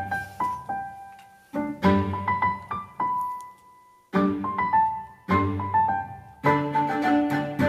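Background piano music: phrases of struck notes that ring and die away, fading almost out about a second in and again around four seconds before the next phrase starts.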